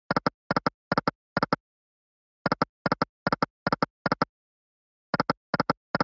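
Kangaroo Land online slot game sound effects: a short triple click as each of the five reels stops, in quick runs of five clicks about a second and a half long, repeated three times with short silences between spins as the free spins play out.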